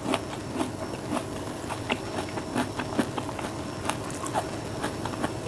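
A person chewing fruit with the mouth closed, close to the microphone: irregular small clicks and smacks, a few a second.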